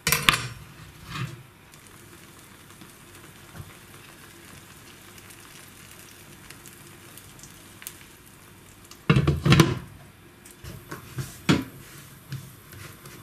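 Potato-egg omelette frying on low heat in a non-stick pan, a faint steady sizzle. A few knocks at the start, and a loud clatter of a glass lid being set on the pan about nine to ten seconds in, with smaller knocks after.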